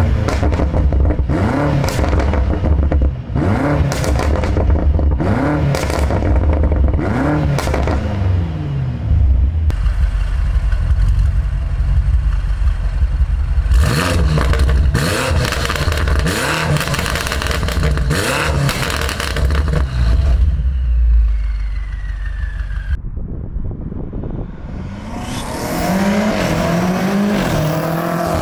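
BMW F90 M5's twin-turbo V8 on the stock exhaust and stock downpipes, revved in two runs of quick blips, each rising and falling in pitch, with pops and crackles between them and a short spell of idle in between. Near the end the sound cuts off abruptly and another rev begins.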